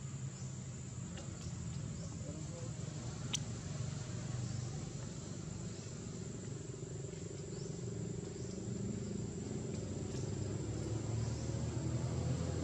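A motor vehicle engine running, its low rumble growing louder toward the end, over a steady thin high-pitched tone. A single sharp click about three seconds in.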